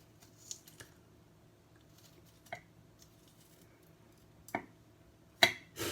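A knife cutting into a chocolate Jigsaw chili pod, with a few scattered clicks and taps. The loudest two come close together near the end.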